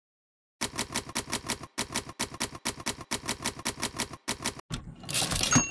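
Manual typewriter keys striking in a fast, even run of clicks, typing out a line. About five seconds in the typing stops for a carriage return with a brief bell ring.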